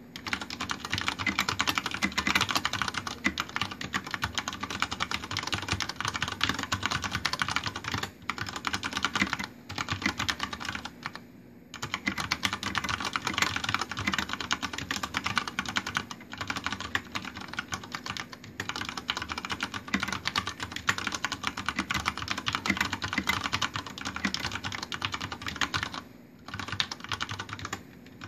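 Fast continuous typing on a Deck Francium Pro mechanical keyboard with Cherry MX Brown switches and Vortex PBT keycaps, a dense run of key clicks broken by a few short pauses.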